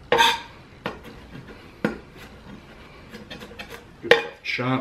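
Serbian-style cleaver chef knife chopping garlic on a wooden cutting board: a loud chop with a metallic ring from the blade right at the start, two lighter chops about a second apart, a quick patter of light taps, then another loud chop near the end.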